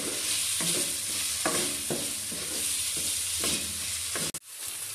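Chopped onions sizzling in hot oil in an aluminium kadai, being fried until light brown. A wooden spoon stirs and scrapes the pan about twice a second. The sound cuts out abruptly near the end, then the sizzle resumes more softly.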